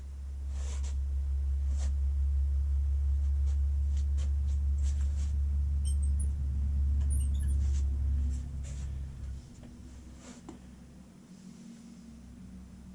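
A low, steady machine hum builds up, runs for about eight seconds, then dies away. Scattered small clicks and a few brief high squeaks from handling the work sit over it.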